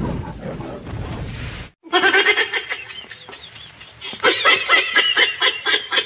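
Chickens clucking and squawking in quick, overlapping short calls, starting about two seconds in after a rumbling noise cuts off.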